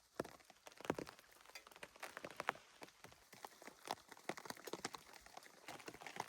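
Light rain with water dripping: many irregular drops ticking and plopping on a surface, over a faint steady patter.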